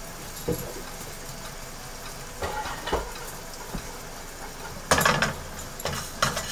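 Cumin seeds and asafoetida frying in a little hot oil in a nonstick pan, with a few scattered pops. About five seconds in, a spatula starts scraping and stirring them around the pan, and these strokes are the loudest sound.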